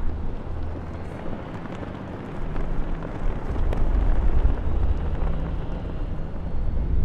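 Moscow Metro train noise: a steady low rumble and rushing of wheels on rails that grows louder about two seconds in.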